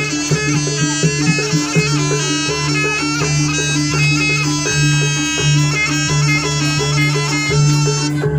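Javanese jaranan accompaniment music: a loud reedy wind melody moving in steps over steady low held tones and regular drum strokes.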